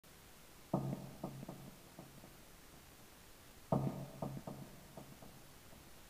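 Quiet plucked-string music, likely guitar: a short phrase of a few notes, each struck sharply and fading, played twice about three seconds apart.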